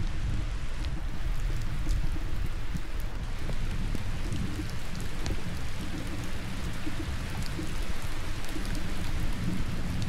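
Steady rain falling, with drops ticking close by and a low rumble underneath.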